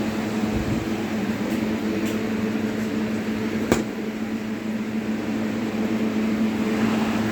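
Hindware Vectra 85 L air cooler's fan motor running with a steady electric hum, with a single sharp click about three and a half seconds in.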